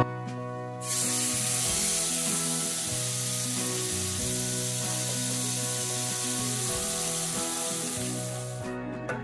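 Ribeye steak sizzling in a hot ridged griddle pan: a steady frying hiss that starts abruptly about a second in and dies away near the end, with acoustic guitar music underneath.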